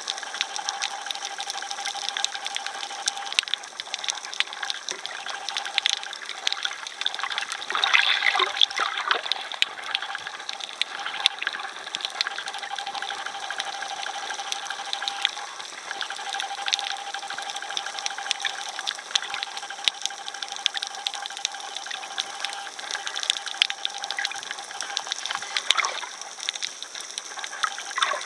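Underwater ambience picked up by a submerged camera: a steady hiss full of small crackles and clicks, with a faint steady tone that comes and goes. A louder rushing swell of water sound rises and fades about eight seconds in.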